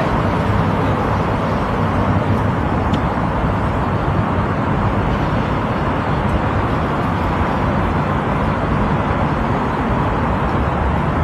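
Golf cart driving along steadily: a continuous low rumble with a faint steady tone above it.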